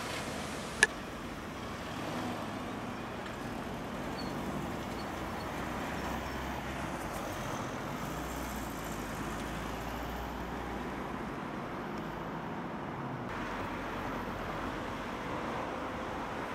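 City road traffic: cars driving past, a steady hum of engines and tyres, with one sharp click about a second in.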